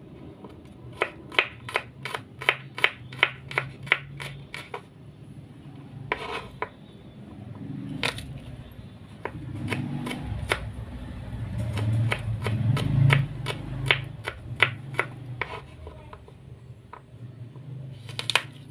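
Kitchen knife chopping garlic finely on a wooden cutting board: quick runs of sharp taps of the blade on the wood, about three a second, with short pauses between runs. A low background rumble swells in the middle.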